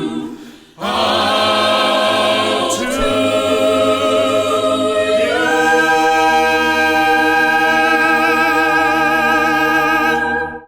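Choir singing unaccompanied: the song's final sustained chords, which shift twice. The last one is held about five seconds and then cuts off sharply.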